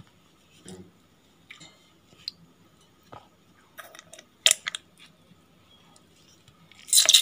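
A fresh cream carton packet being squeezed and handled while thick cream drops into a steel mixer grinder jar. It gives scattered soft crinkles and clicks, busier about four seconds in, with a louder rustle near the end.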